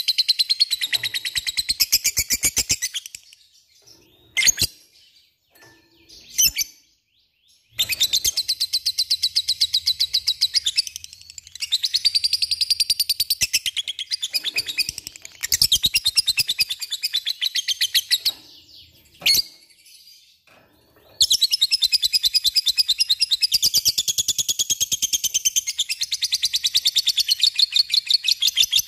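Lovebird singing its long, rapid rattling chatter ('ngekek'), in several runs of a few seconds each, the last one about eight seconds long, with single sharp chirps in the pauses between.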